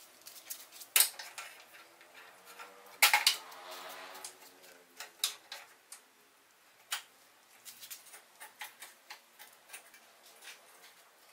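Clicks and clanks of a homemade pipe clamp being handled: its metal jaws knock and slide on the half-inch steel pipe. One sharp clank about three seconds in leaves the pipe ringing for a couple of seconds, and lighter clicks follow.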